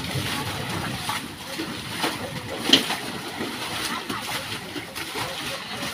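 Floodwater splashing and sloshing as it is scooped and poured out of a flooded lane with metal pots, with one sharp knock a little under three seconds in.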